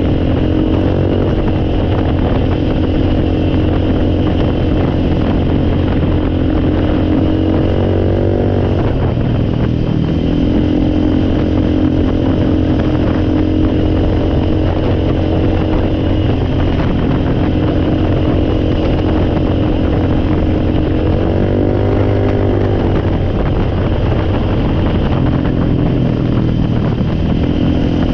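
A small engine running steadily, its speed shifting twice, around a third of the way in and again near three-quarters.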